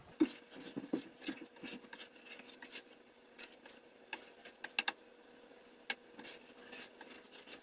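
Black nylon slotted spatula stirring and scraping through mushrooms in Marsala wine sauce in a nonstick frying pan, with scattered light scrapes and clicks. It is deglazing the pan, working the browned bits loose from the bottom.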